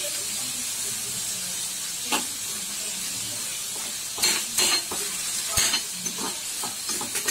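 Tomatoes, onions and green chillies sizzling in oil in a steel kadai as a metal spoon stirs them, knocking and scraping against the pan several times.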